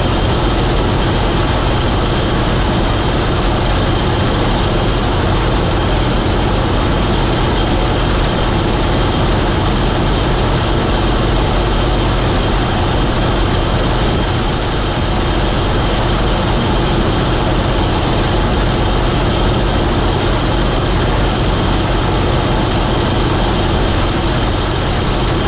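Combine harvester running steadily while harvesting clover seed: a constant loud mechanical drone that holds at one level throughout.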